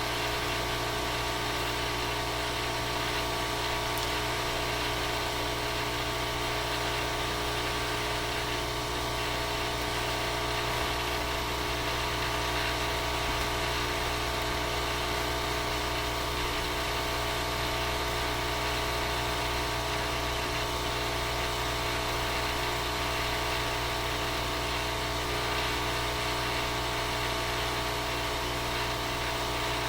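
A steady, unbroken machine-like hum made of several held tones over a low drone, level throughout.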